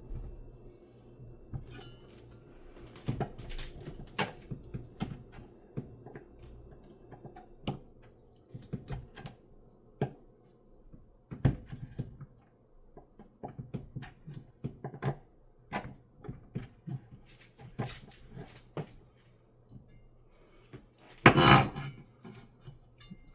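Kitchen knife chopping a stack of sliced cheese on a cutting board: irregular knocks of the blade, with a louder clatter near the end.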